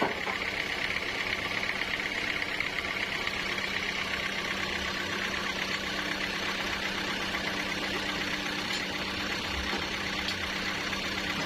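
Sawmill machinery running steadily: a constant low hum with an even, hissy whir above it.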